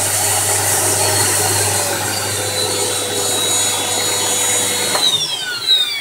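Scarlett SC-1081 vacuum cleaner's 1500 W motor running steadily, working again after the repair of its failure to switch on. About five seconds in it is switched off, and its whine falls away as the motor spins down.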